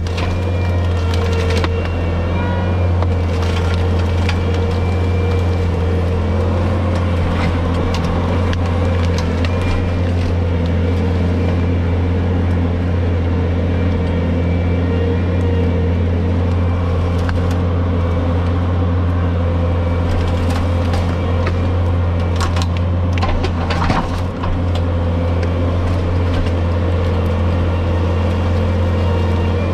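A 66-inch Brush Cat rotary brush mower cutting brush, its machine's engine running at a steady drone with scattered sharp cracks and snaps of brush and wood going through the blades. Once, late on, the sound dips briefly.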